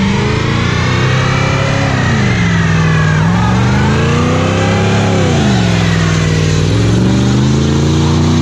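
Full-size pickup truck's engine revving hard during a burnout, its pitch climbing and dropping several times while the rear tyres spin in place.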